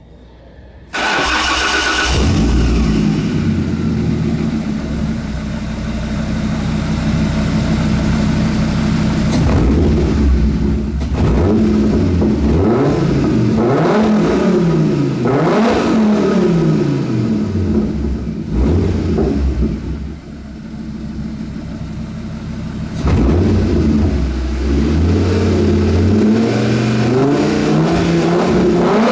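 Fiat Marea 2.4 20v's inline five-cylinder engine starting about a second in, then idling and revved repeatedly, its pitch rising and falling with each blip of the throttle. The exhaust runs through only a catalytic converter and one mid-mounted silencer, with a straight pipe after it.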